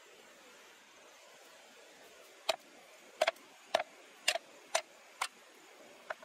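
A run of seven sharp knocks, about two a second, starting a couple of seconds in over a faint steady hiss.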